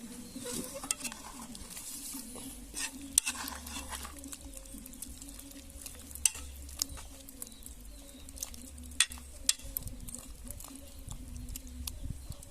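A spoon stirring curry chicken in a pot, scraping around it, with a few sharp knocks of the spoon against the pot now and then.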